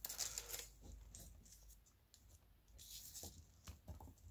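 Faint rustling and a few light clicks of small plastic model parts and tiny screws being handled, with a short rustle at the start and another about three seconds in.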